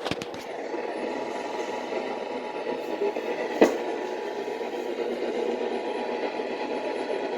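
Steady radio static from a weakly received station, with a cluster of sharp crackles at the start and another crackle about three and a half seconds in.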